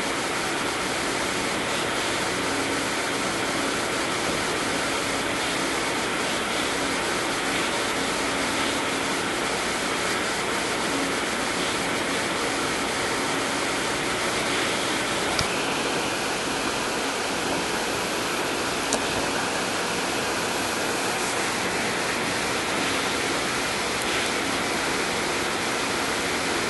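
Steady, even hiss with no change in level, with a faint click a little past halfway and another a few seconds later.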